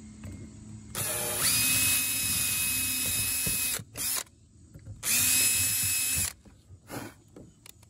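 Makita 18V cordless drill running a small bit through a kayak's plastic hatch lid: the motor whines up in pitch and holds steady for about three seconds, gives a short blip, then runs again for about a second. A few small clicks follow near the end.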